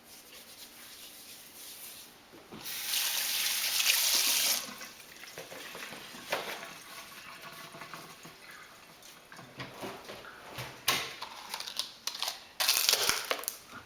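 Tap water running into a sink during hand-washing: a loud gush for about two seconds near the start, then quieter splashing and handling, and a second short gush near the end.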